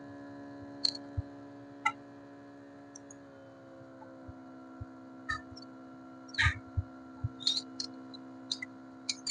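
Steady hum of a phone-screen separator machine's vacuum pump, which settles slightly lower in pitch about three seconds in. Over it come scattered light ticks and scrapes from a thin cutting wire being sawn back and forth under the screen glass, more frequent in the second half.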